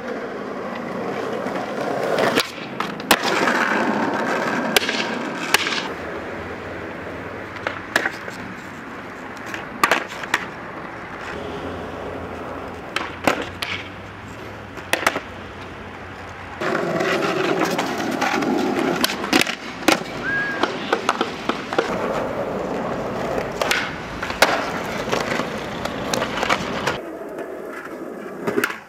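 Skateboard wheels rolling on concrete and paving, broken by many sharp cracks and clacks of the board popping off the ground and landing.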